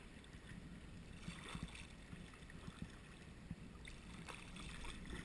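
Faint lapping of calm sea water around sea kayaks, with a few soft paddle splashes.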